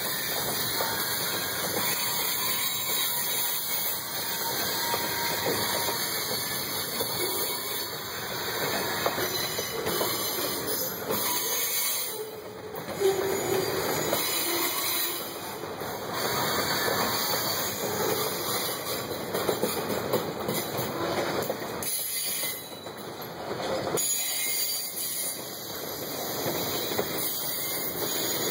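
Freight train cars, boxcars then tank cars, rolling past: steady clatter of steel wheels over the rails, with a few sharper clanks.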